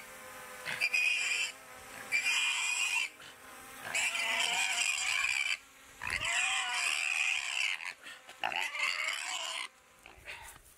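Young pig squealing in distress as it is grabbed and lifted by its legs: five loud, shrill screams of a second or more each, the last ending shortly before the end.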